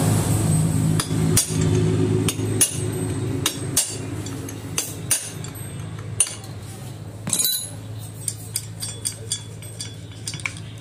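Irregular sharp metal clicks and clinks from a motorcycle clutch being taken apart by hand, as its parts knock against the clutch basket while they are worked loose and pulled out. A steady low hum runs underneath.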